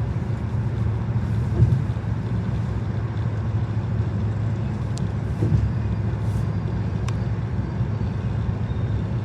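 Train passing, a steady low rumble with two faint sharp clicks in the middle.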